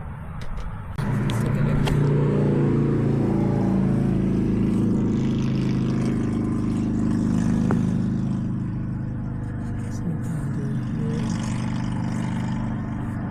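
A motor vehicle's engine running steadily. It comes in abruptly about a second in, with a low even hum.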